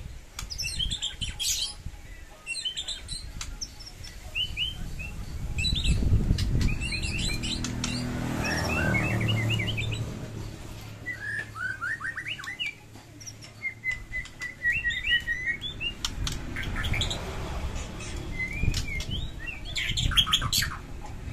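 White-rumped shama singing in a varied run of short whistled phrases, sharp clicks and chirps, with a fast even trill about two-thirds of the way through. A low rumble sits underneath around the middle.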